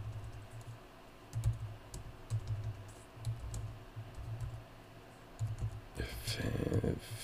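Typing on a computer keyboard: irregular clusters of key clicks and taps, with a voice muttering near the end.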